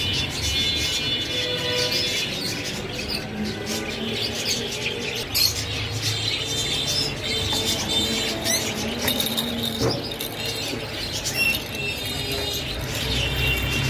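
Birds chirping over background music.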